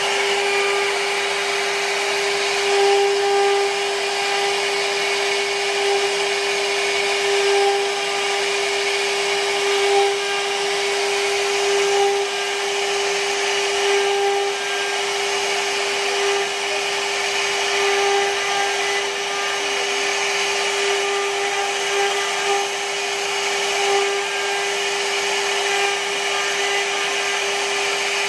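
CNC router spindle running steadily while its small carving bit cuts a relief pattern into a wooden panel. It holds one steady tone over the hiss of the cut, with small swells in loudness as the bit moves through the wood.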